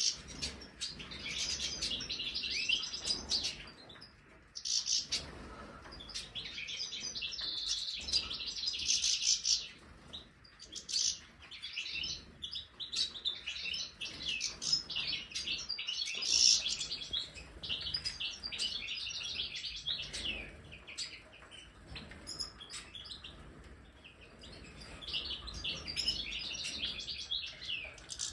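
A flock of European goldfinches twittering and singing, with rapid, tinkling chirps that come in bouts separated by brief lulls.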